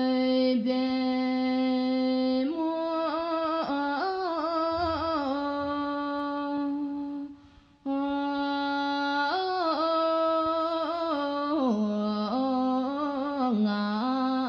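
A solo voice sings a slow Bhutanese song, unaccompanied, holding long notes and decorating them with quick ornamented turns. The voice breaks off briefly about halfway through, then goes on.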